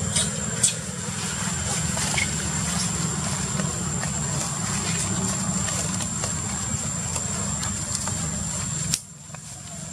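Steady outdoor background noise: a low rumble with a constant thin high-pitched tone over it and a few light clicks and rustles, dropping off abruptly about nine seconds in.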